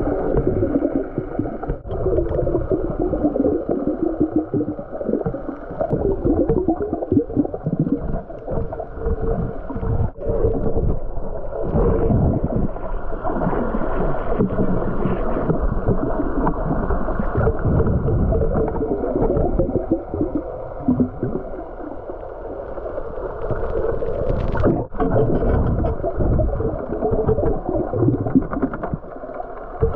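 Muffled underwater sound picked up by a camera in a waterproof housing while snorkeling: irregular low rumbling and water movement with a wavering hum at times and a few sharp ticks.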